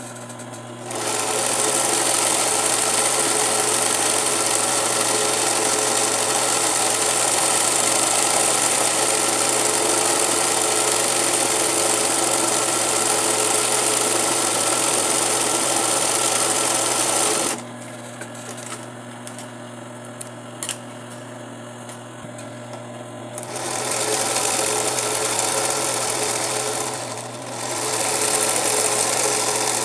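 Industrial zig-zag sewing machine (Singer 20U) running steadily, sewing zig-zag stitches around fabric appliqué. About halfway through it stops for some six seconds, with only a few light clicks, then starts again, easing off briefly shortly before the end.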